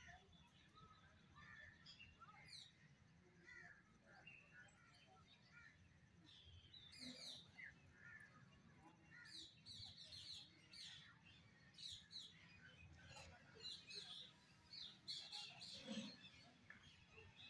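Faint chirping of many small birds, short high calls overlapping and growing busier in the second half.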